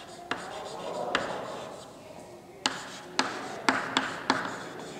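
Chalk writing on a blackboard: about six sharp taps as the chalk strikes the board, with a faint scratch of the strokes between them.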